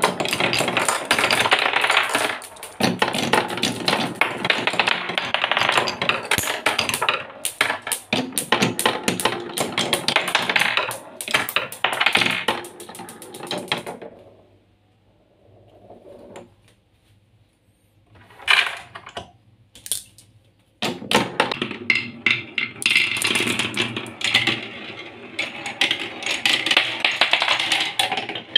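Glass marbles rolling and clattering down a wooden marble run, ticking over the dowel bumps on a curved wooden slope. The rattle drops to near silence for several seconds after the middle, with one short burst of clicks, then resumes densely as several marbles circle a wooden spiral track.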